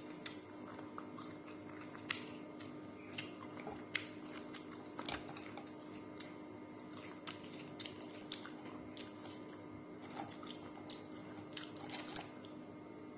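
A person eating fried round scad (galunggong) with her fingers: close chewing, lip smacks and finger sucking heard as scattered soft wet clicks, over a faint steady hum.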